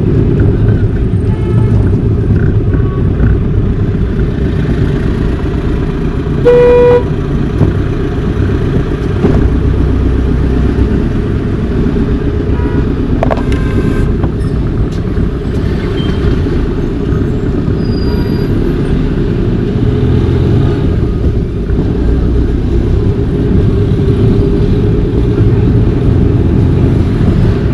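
Steady road and engine rumble of a car being driven, with a short car-horn toot about six and a half seconds in.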